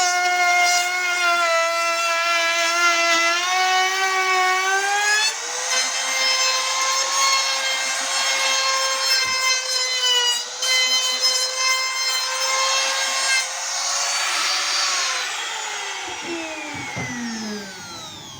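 Small trim router rounding over the edge of a wooden speaker cabinet: a high motor whine that shifts in pitch as it cuts, then winds down after it is switched off a few seconds before the end.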